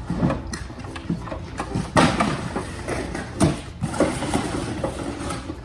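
Plastic dollhouse sections being handled and moved, with several sharp knocks of plastic on plastic. The loudest knocks come about two seconds in and again about three and a half seconds in.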